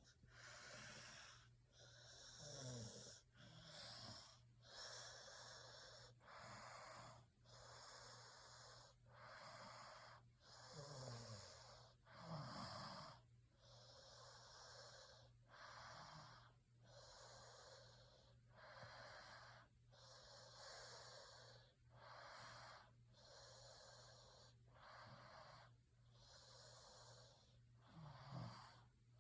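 A sleeping person snoring: faint, rhythmic, airy breaths in and out, about one a second, with a few low gliding snorts among them.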